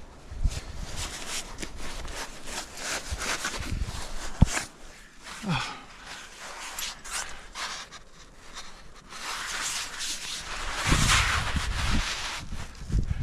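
Irregular scraping, rubbing and knocking of a rock climber moving on the rock face, with one sharp knock about four seconds in and a louder stretch of rustling and thuds near the end.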